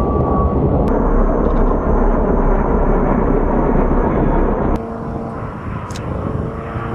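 Loud military aircraft noise overhead: the twin-turbofan whine of an A-10C Thunderbolt II falling in pitch as it passes, then the heavy rumble of a helicopter. About four and a half seconds in the sound cuts abruptly to a quieter, distant engine hum.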